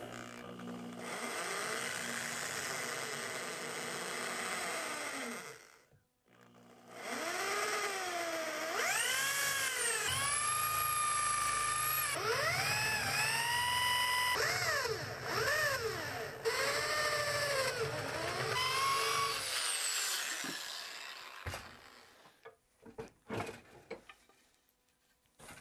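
Corded electric drill boring a dowel hole into a hardwood chair rocker. It makes a steady first run, stops briefly, then runs longer with the motor's pitch repeatedly rising and falling. A few faint clicks come near the end.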